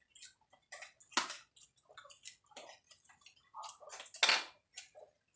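Scattered clinks and clatters of spoons on plates and bowls during a meal, with the loudest knocks about a second in and just after four seconds.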